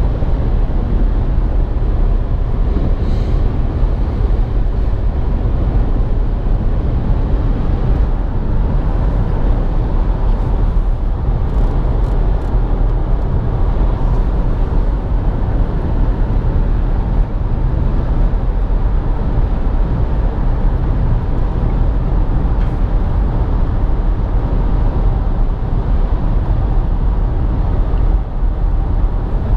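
Steady, even rumble of a 2017 Nissan Rogue SV AWD running, with engine and road noise.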